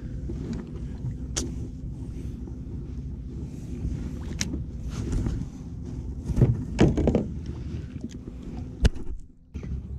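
Spinning reel being cranked to bring in a hooked fish: a steady geared whir, broken by a few sharp clicks and knocks, the sharpest near the end.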